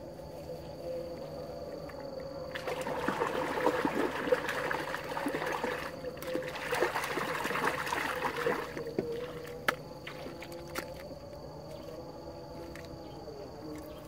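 Hands splashing in shallow river water, rinsing freshly caught fish: a run of splashing that starts a couple of seconds in, dips briefly, and stops a little past the middle.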